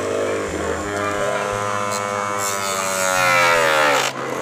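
A 555 DC motor spinning a small cutting disc, running with a steady electric whine. From about two seconds in, its pitch drops and a louder rasping hiss rises. Near the end it briefly cuts out, then comes back to a steady whine.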